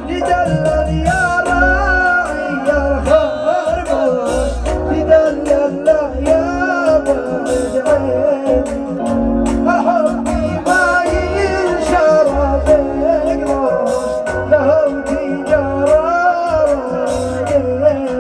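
Arabic hejini song music: an electronic keyboard plays an ornamented, sliding melody over a heavy, steady beat.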